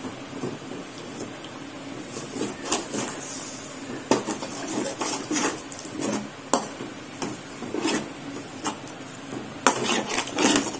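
Spatula stirring jaggery lumps in water in an aluminium kadai: irregular scrapes and clinks of the spatula against the pan, with a cluster of quicker strokes near the end.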